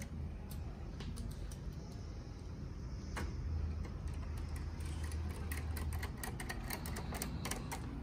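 Small irregular metal clicks and ticks of a precision screwdriver turning screws into the steel frame of an Asus G20AJ desktop, over a low steady hum.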